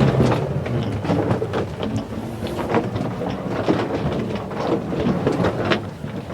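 Foley recreation of a wheeled suitcase being pulled along: a continuous rolling rumble with frequent irregular clicks, like small wheels crossing floor joints.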